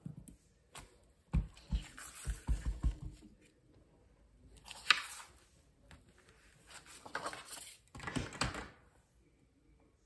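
Clear acrylic stamp block pressed and rocked onto paper on a craft mat while stamping an inked fern image: a run of soft thuds with paper rustle, one sharp click about five seconds in, then more thuds and rustling.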